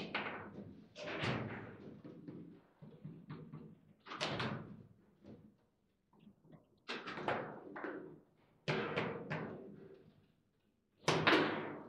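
Foosball table in play: irregular sharp knocks and bangs as the ball is struck by the rod-mounted players and hits the table's walls, with rods clacking in between. Sometimes single hits, sometimes quick runs of three, with the loudest bang near the end.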